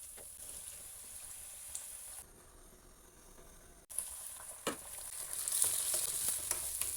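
Food sizzling as it fries in a hot pan, growing louder about four seconds in, with a single light knock shortly after.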